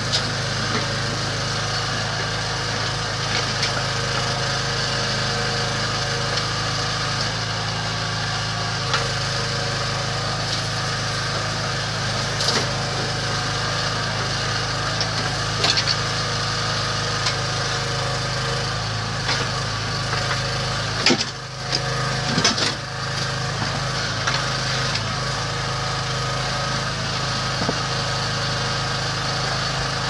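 The small 9 hp petrol engine of a towable backhoe runs steadily, driving the hydraulics while the bucket digs and dumps gravel. A few sharp knocks of the bucket and stones cut through the engine noise.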